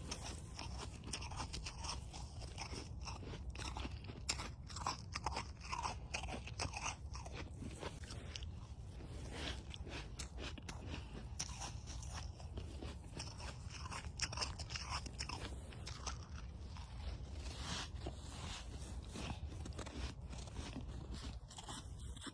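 A person biting and chewing mouthfuls of snow close to the microphone, with many irregular crunches.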